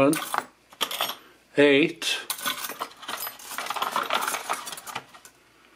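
Small metal sewing-machine presser feet and attachments clinking and rattling as they are handled and set down one by one, with a brief voiced sound about a second and a half in.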